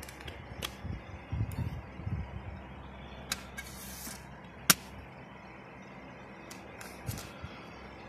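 Plastic CD jewel case being handled: scattered small clicks and taps of the case, with a short rustling slide about three and a half seconds in and one sharp, loud click a little before five seconds in.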